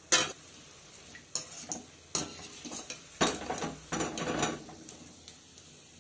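A metal spatula and a wire-mesh skimmer clanking and scraping against an aluminium kadai while scooping fritters out of hot oil, over a low sizzle of frying. A sharp clank at the start and a few clinks are followed, about three seconds in, by a longer stretch of scraping and rattling.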